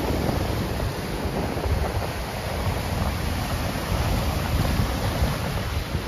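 Surf washing up on a sandy beach, with strong wind buffeting the microphone as a steady, flickering low rumble over the wash of the waves.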